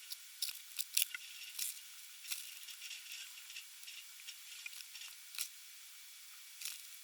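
Hot tip of a Parkside PLSD 60 C3 soldering iron sizzling, with a steady hiss and irregular sharp crackles.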